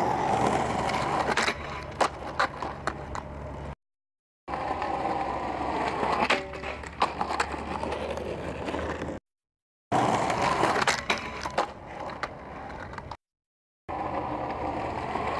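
Skateboard wheels rolling on concrete, broken by sharp clacks and knocks as the board hits the metal rail and the ground. It comes in several short takes cut apart by brief silences.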